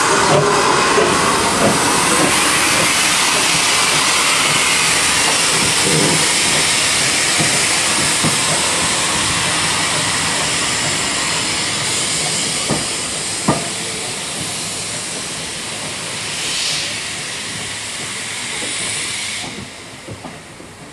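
GWR 1400 class 0-4-2T tank engine No. 1450 pulling away with its auto coach, cylinder drain cocks open: a loud, steady hiss of steam with a few clanks from the wheels and couplings. Near the end the hiss cuts off and it goes much quieter.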